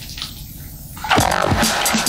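Soft water sounds and drips of a steamy indoor pool, then about a second in loud band music with drums cuts in suddenly.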